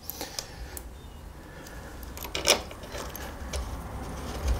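Small metallic clicks and clinks of a brake caliper bolt being handled and fitted by hand at a motorcycle's front fork, with one sharper clink about two and a half seconds in.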